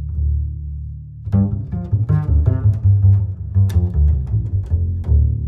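Background music: a held low bass note, then a quick run of short plucked notes starting about a second in.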